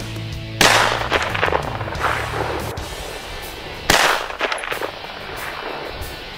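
Two AR-15 rifle shots about three and a half seconds apart, each sharp crack trailing off in echoes over about a second.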